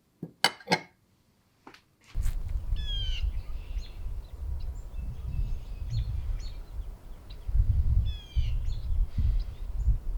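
A few sharp clicks in the first second or so. Then wild birds calling, with wind rumbling on the microphone. Twice, a bird gives a quick run of falling notes.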